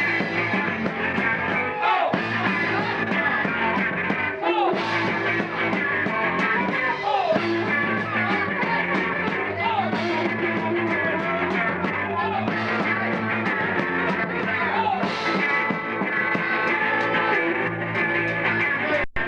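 Rock band playing live, full band with singing, with a sliding figure that comes round about every two and a half seconds. The sound cuts out for an instant near the end.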